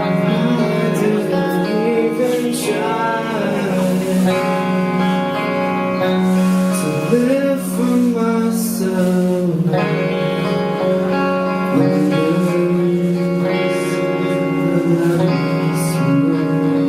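A band playing a song: guitar chords with a sung vocal line.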